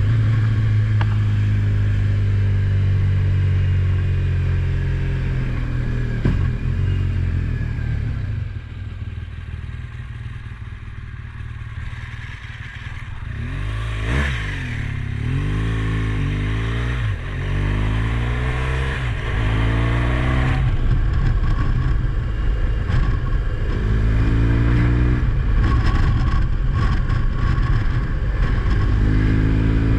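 A motor vehicle engine running, its pitch rising and falling with the revs. It eases off for a few seconds about a third of the way in, then picks up again and runs steadily louder.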